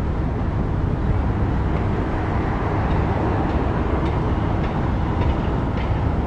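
Diesel engine of a KiHa 37 railcar running under load as the train pulls away, a steady low rumble heard from on board, with a few light clicks near the end.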